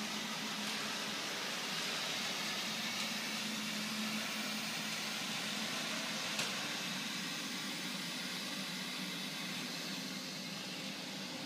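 Neato robot vacuum running: a steady whir with a low hum, a little fainter near the end as it moves away. One brief click about six seconds in.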